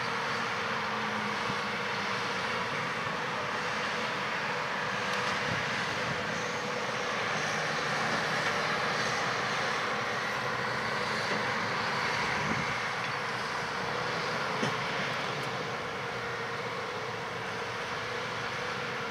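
John Deere 8R-series tractor and the six-row peanut combine it pulls, running steadily as they harvest, an even mechanical hum.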